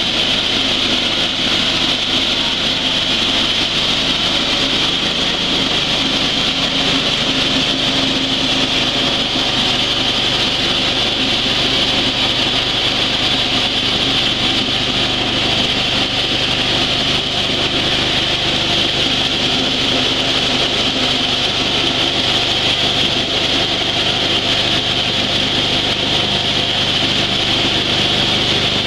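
Dry coffee huller running steadily: an even mechanical drone with a constant high hiss.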